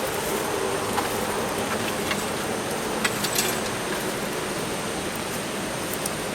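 A steady rushing noise with a few scattered sharp crackles and clicks, a small cluster of them about three seconds in.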